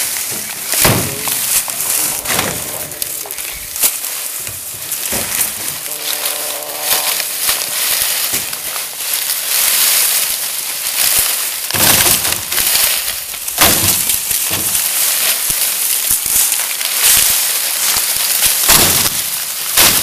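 Cut sugarcane stalks rustling and clattering as they are gathered by hand, with irregular sharp knocks as stalks strike each other and the pile.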